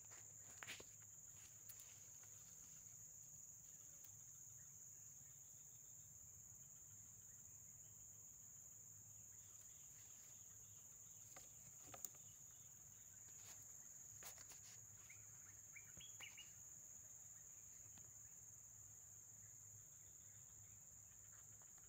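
Faint, steady high-pitched drone of insects calling together, with a few soft clicks and some short rising bird-like chirps about two-thirds of the way through.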